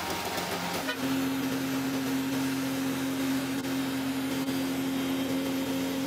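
Slipform concrete curb machine's engine running at a steady speed. About a second in, the sound changes to a steady, fixed-pitch drone.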